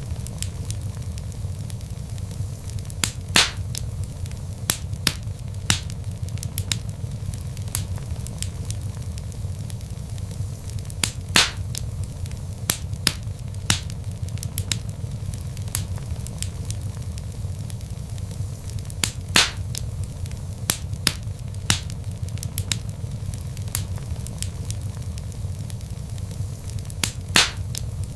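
Log fire in a fireplace crackling: frequent small snaps and pops over a steady low rumble of flames, with a louder pop about every eight seconds.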